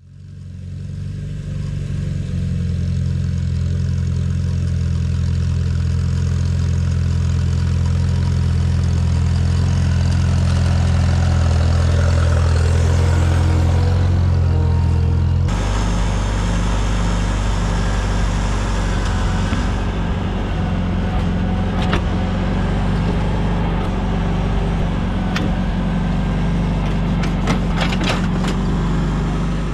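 Tractor engine running steadily. Its sound changes abruptly about halfway through, and a few sharp clanks come near the end.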